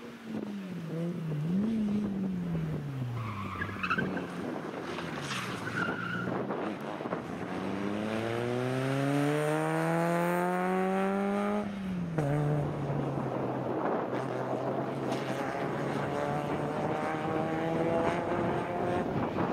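Rally car engine revving hard through the gears. The pitch falls and rises with each gear change, climbs in one long pull that drops off sharply about twelve seconds in, then holds and rises again near the end. There are short tyre squeals a few seconds in.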